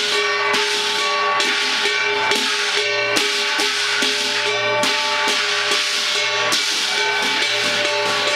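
Continuous percussion music with dense clashing and steady ringing tones, typical of the gong-and-cymbal ensemble played at a Chinese temple rite.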